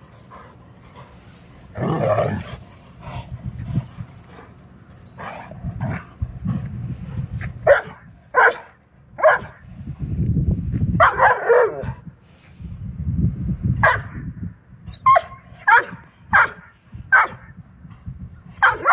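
Vizsla dogs barking in play: a run of short, sharp barks, about one or two a second, from about eight seconds in.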